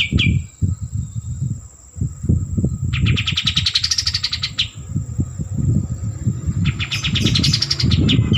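Kapas tembak songbird singing three fast rattling phrases, each made of rapid repeated notes that rise in pitch and then fall away. A low irregular rumble runs underneath.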